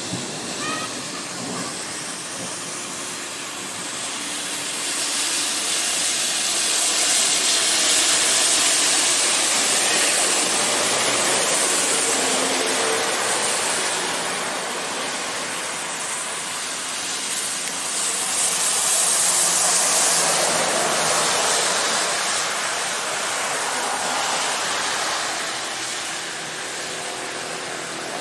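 Heavy rain hissing steadily, with trucks and a bus passing on the wet road, their tyres swishing through standing water; the hiss swells twice as vehicles go by.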